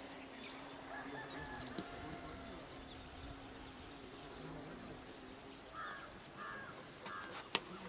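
Faint open-air ambience with scattered distant bird calls, including three short harsh calls about six to seven seconds in. Two sharp knocks just before the end are the loudest sounds.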